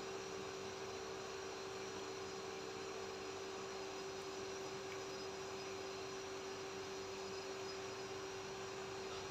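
Steady electrical hum at one pitch, with an even hiss behind it.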